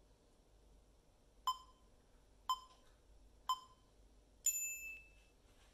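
Countdown timer beeping: three short beeps a second apart, then a longer, higher final beep, marking the end of a timed stretch.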